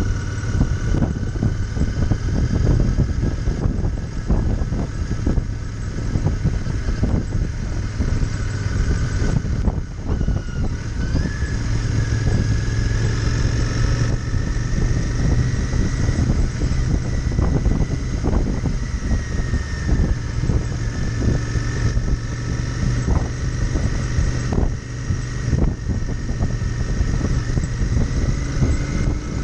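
Royal Enfield Interceptor 650's parallel-twin engine running steadily while the motorcycle cruises, heard with heavy wind buffeting on the microphone. A faint high whine rises a little about eleven seconds in.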